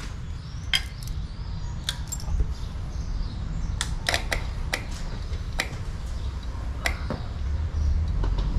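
Sharp clicks, irregularly spaced with a quick run of them about four seconds in, as the ignition is switched on and the newly fitted electric fuel pump of a Yamaha Virago 535 gives its normal click: the new pump is working. A steady low rumble runs underneath.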